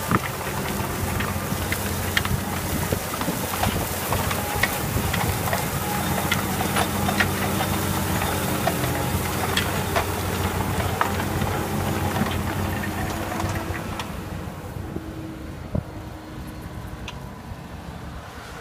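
Fendt 936 tractor's six-cylinder diesel running steadily under load as it pulls a McConnel Discaerator disc-and-tine cultivator through stubble. Scattered clicks and knocks come from the discs and tines working the soil. The sound fades in the last few seconds as the rig moves away.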